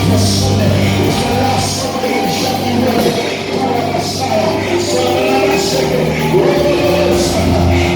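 Live worship music: a band with a steady drum beat and sustained bass, with singing over it.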